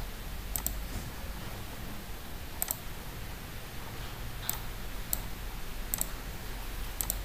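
Computer mouse clicks, some of them quick double-clicks, about six in all, over a low steady hum.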